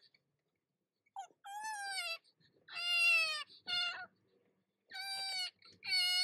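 A toddler crying in a series of short, high-pitched wails, about six in a row, the loudest about three seconds in.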